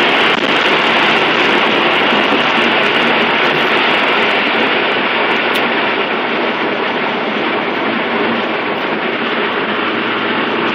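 Steady road and engine noise inside the cabin of a 1993 Mitsubishi 3000GT VR-4 cruising on the highway: a loud, even rush of tyre and wind noise over the hum of its twin-turbo V6.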